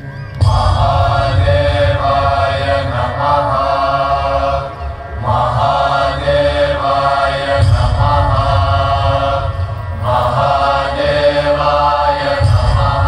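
Voices chanting a mantra in repeated sung phrases of two to three seconds, over a deep low drone, coming from the light-and-sound show's soundtrack. The chant comes in suddenly about half a second in.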